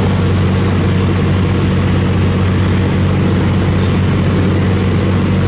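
Kobelco SK50 mini excavator's diesel engine running steadily at a constant speed, a loud even hum.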